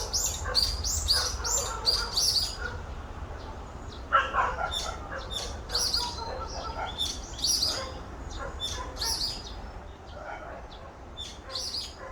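Songbirds chirping, with short high notes repeated in quick runs. A lower call, likely a dog barking, comes about four seconds in.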